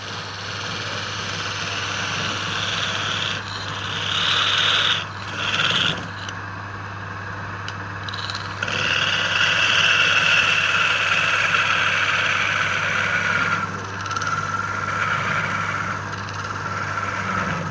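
Electric wood lathe running with a steady motor hum while a turning tool cuts the spinning wood, giving a high squeal that comes and goes in two stretches, the longer one about halfway through.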